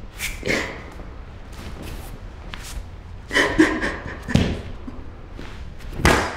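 A handful of dull thuds and knocks at irregular intervals, the loudest a cluster about halfway through, over a steady low background rumble.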